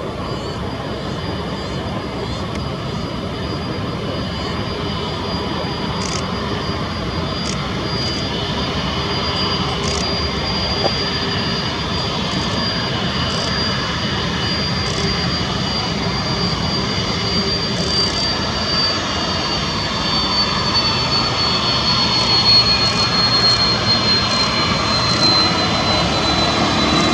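Jet engines of a China Airlines Airbus A330 taxiing slowly toward the listener: a steady high whine over the engine noise, growing gradually louder, its pitch sliding down a little in the last several seconds.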